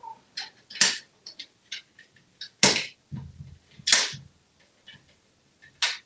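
Sharp clacks and ticks of a red plastic toy tool handled in an African grey parrot's beak and knocked against the vanity countertop: four louder clacks spaced one to two seconds apart, with lighter ticks between.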